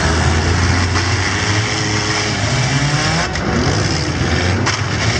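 Several small four-cylinder demolition derby cars revving their engines at once, with a couple of sharp crash impacts as they ram each other.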